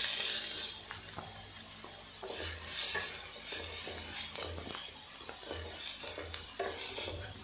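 A wooden spatula stirring and scraping chopped onions around a stainless steel pot, in irregular strokes over a light sizzle of hot coconut oil. The onions are being sautéed until soft.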